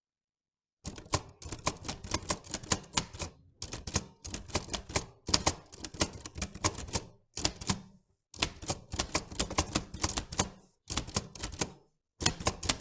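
Quick runs of sharp clicks and clacks in bursts separated by short pauses, starting about a second in.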